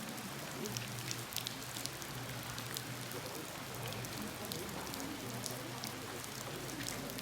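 Rain falling steadily, with many small sharp drop hits.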